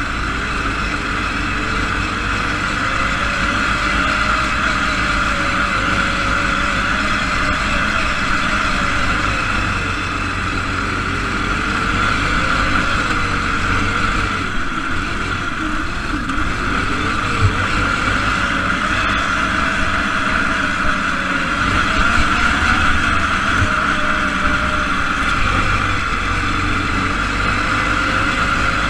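Single-cylinder Briggs & Stratton engine of an SAE Baja off-road buggy running under throttle while driving over a dirt track, its pitch rising and falling as the driver works the throttle. A steady high hum runs through it, and a couple of short knocks come about two-thirds of the way in and again near the end.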